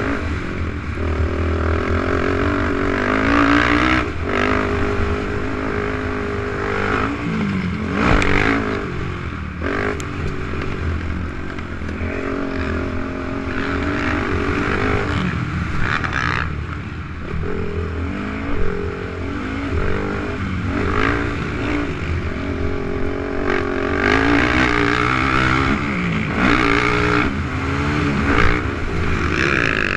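450-class production ATV's single-cylinder four-stroke engine revving up and down with the throttle as it races over a dirt track, heard onboard with wind noise on the microphone. Occasional sharp thumps break in, the loudest near the end.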